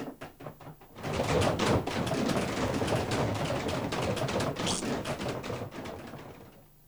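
Cartoon sound effects: a quick patter of footsteps running down stairs, then a long, busy clatter of knocks and thumps from a chase that fades out toward the end.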